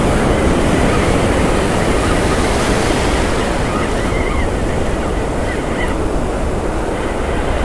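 Ocean surf breaking and foam washing in a steady, loud rush.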